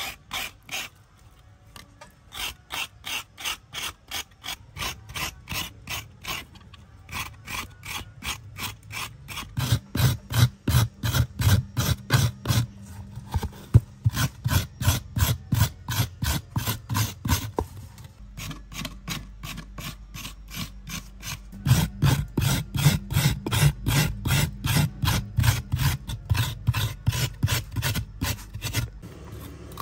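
Food being grated by hand: steady rasping strokes, about three a second, that grow heavier and deeper about a third of the way in.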